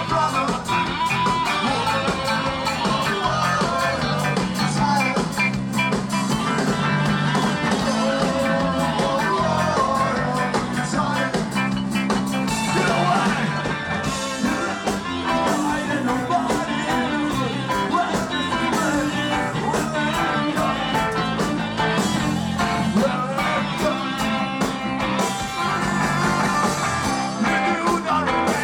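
Ska band playing a song, with guitar and singing over a steady beat.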